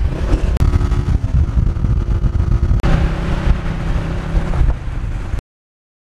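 Riding a motorcycle along a road: heavy wind buffeting on the microphone over the running engine, which holds a steady note for a couple of seconds past the middle. The sound cuts off abruptly to silence near the end.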